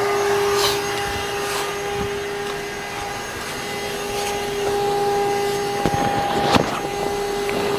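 Rechargeable electric air pump of a Naturehike air mattress running with a steady hum as it inflates the mattress. A couple of sharp knocks come near the end as the half-inflated mattress is handled.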